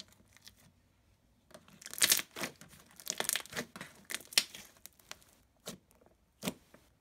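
Pink white-glue base slime being stretched, folded and pressed by hand, giving irregular crackles and pops. The crackling starts about a second and a half in.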